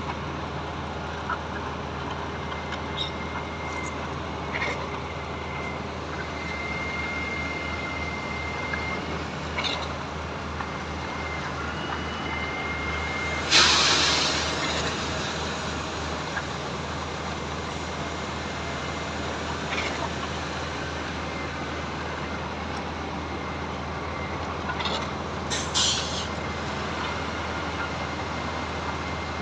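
Truck-mounted concrete pump's diesel engine running steadily during a concrete pour, with a short sharp hiss of air about halfway through.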